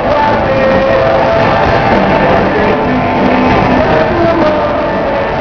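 Live band playing loud, steady rock-style music with guitar.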